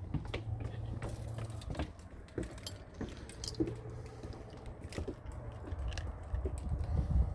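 Scattered, irregular light clicks and knocks over a steady low rumble.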